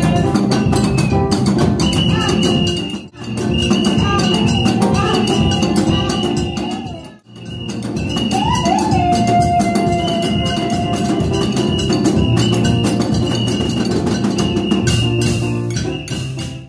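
Upbeat church praise music: steady drum and percussion rhythm with a woman singing lead into a microphone. The music drops out briefly twice, about three and seven seconds in, and cuts off at the end.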